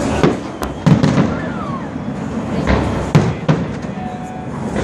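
Fireworks show exploding: a run of sharp bangs about every half second to second over a steady crackle of bursting shells.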